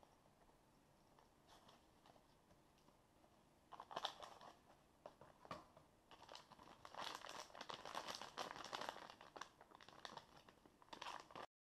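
Thin plastic packaging bag crinkling and rustling in quick, irregular bursts as it is handled, faint at first and busier from about four seconds in.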